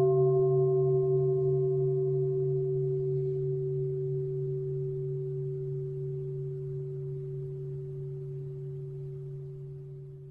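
Meditation bell ringing out from a single strike and slowly fading, its low hum wavering gently. It is the one bell sound that marks the end of the sitting meditation.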